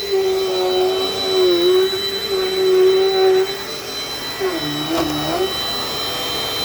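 Dirt Devil Dynamite Plus vacuum cleaner running steadily, with a high motor whine; its tone dips briefly about a second and a half in and again around five seconds in.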